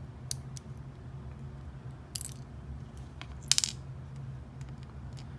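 Small lock pins and drivers clinking as they are set down in a pin tray: a few light metallic clicks, the loudest a ringing clink about three and a half seconds in.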